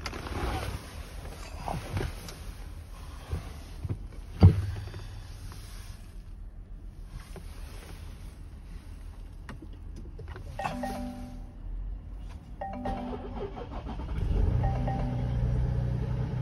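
Inside a car cabin: a single heavy thump about four seconds in, then repeated dashboard warning chimes from about ten seconds. Near the end a low steady rumble rises as the Range Rover's 3.0 TDV6 diesel comes to life on a −17 °C cold start after ten days standing.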